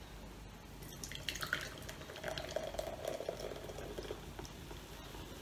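Coke Zero poured from a can into a glass mug, starting about a second in: the liquid gurgles into the glass and fizzes.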